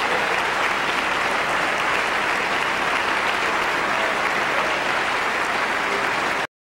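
Audience applauding steadily; the sound cuts off suddenly near the end.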